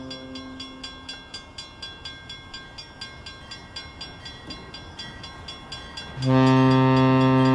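Quiet rhythmic ticking, about three a second, then a loud, steady horn blast from a sound-equipped N scale model locomotive that begins about six seconds in.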